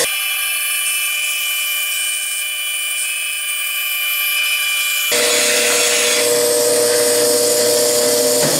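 Bandsaw running and cutting a curve through a wooden board: a steady motor whine with the hiss of the blade in the wood. The sound changes abruptly about five seconds in, when a deeper hum comes back.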